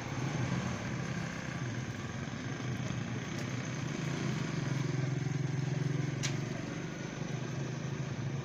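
A motor vehicle's engine running on the road, a steady hum that grows louder around the middle and then fades. A single sharp click sounds about six seconds in.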